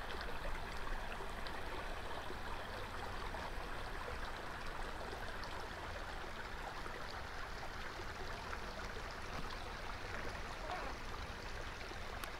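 Shallow brook running over rocks in a desert wash, trickling and babbling steadily.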